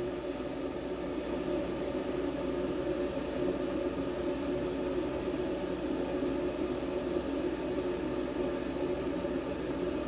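A steady mechanical hum with several held tones over a low rumble and an even hiss, unchanging throughout.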